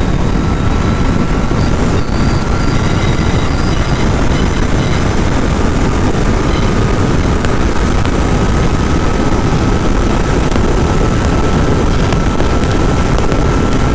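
Loud, steady wind rush over the microphone at highway speed, mixed with the drone of a Royal Enfield Continental GT 650's parallel-twin engine held in sixth gear near top speed. The sound stays level, with a faint thin whine running through it.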